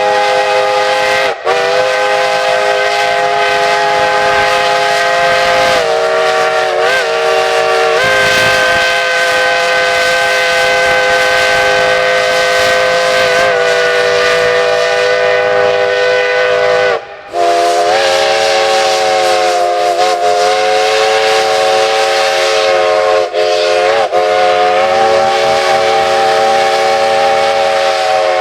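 Steam locomotive's chime whistle blowing long, several notes sounding together. It cuts out briefly about a second and a half in and again past the middle, and sags and swells in pitch a few times as the valve is worked.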